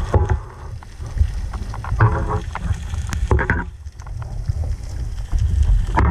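Muffled underwater rumble of water moving past the speargun camera's housing, with knocks and scrapes as a speared amberjack is handled on the spear shaft.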